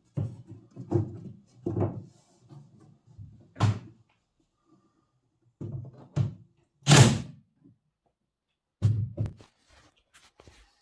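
A pin nail gun firing into a wooden cornice moulding: two sharp shots, about three and a half and seven seconds in, the second the loudest. Between and around them come dull thumps of the moulding being knocked and pressed into place on top of the cabinet.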